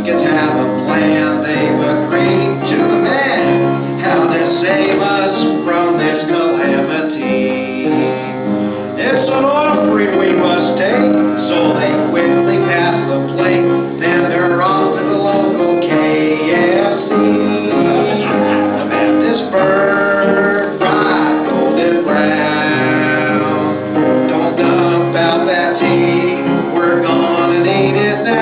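Guitar-accompanied music with male and female voices singing.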